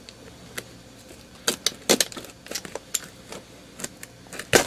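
Utility knife slicing through packing tape on a cardboard box, with the flaps crackling: an irregular run of sharp clicks and crackles, the loudest near the end.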